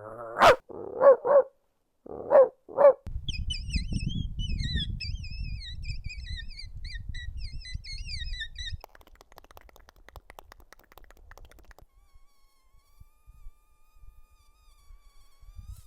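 Five short barks in the first three seconds. Then rapid bird-like chirping over a low rumble for about five seconds, stopping abruptly, followed by faint clicking.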